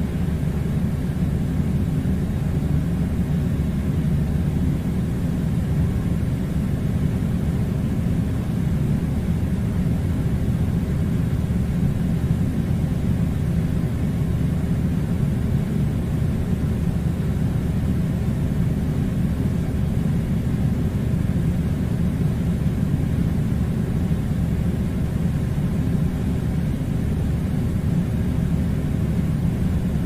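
Air conditioner running: a steady low rumbling whir with a faint hiss above it, unchanging throughout.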